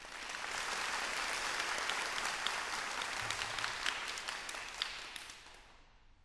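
Audience applauding: the clapping swells in quickly, holds steady for about five seconds, then dies away.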